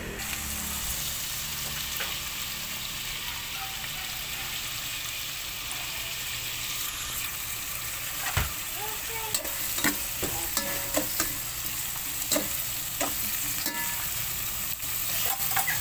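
Garlic, ginger, onion and tomato sizzling in hot oil as they are sautéed in an aluminium pot. From about halfway in, a metal spoon stirring them scrapes and clinks against the pot.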